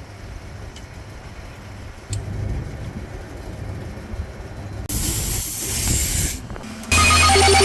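Pressurised refrigerant gas hissing out of a refrigerant line during refrigerant recovery: a loud hiss about five seconds in, lasting about a second and a half. Background music with short electronic notes starts near the end.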